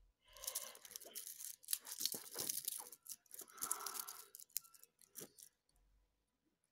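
Hands handling a wristwatch's metal link bracelet close to the microphone: scratchy rustling with scattered light clicks, stopping about five and a half seconds in.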